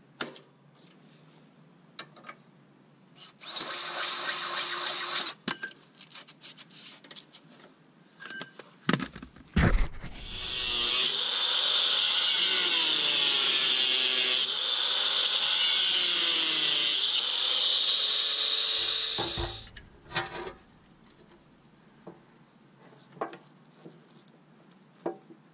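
Cordless drill running under load in two bursts: a short one about three and a half seconds in and a longer one of about nine seconds from about ten seconds in, its speed wavering as it works. Scattered clicks and knocks of tools on metal come between the bursts.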